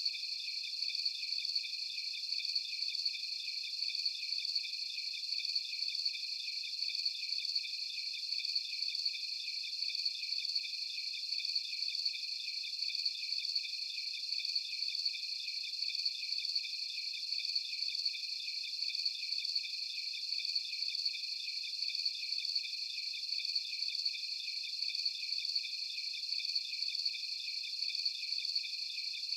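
A chorus of crickets at night, several high-pitched trills at slightly different pitches overlapping in a steady, unbroken pulsing.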